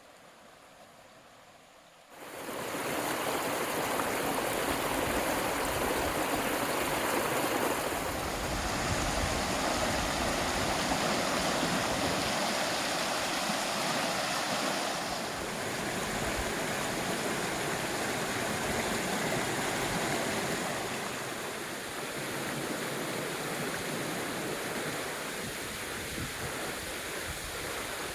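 Flash-flood water rushing down a creek bed that was dry the day before: a loud, steady rush of water that starts abruptly about two seconds in.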